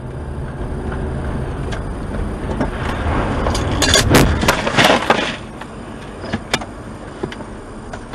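A car driving in traffic, heard from its dashcam in the cabin: a steady low engine and road rumble. A cluster of sharp clicks and rattles comes about four to five seconds in, with a few single clicks after it.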